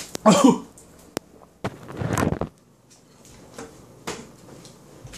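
A man coughing and spluttering after getting water in his face: a short voiced cough at the start, then a harsher, breathy cough about two seconds in. A sharp click and a few small knocks fall between them and near the end.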